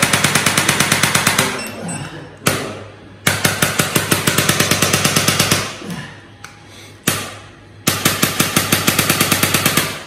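Handheld electric chiropractic adjusting gun firing a rapid train of sharp clicking thrusts against the upper back. It goes in three bursts of about two seconds each, and the second and third bursts are each preceded by a single sharp click.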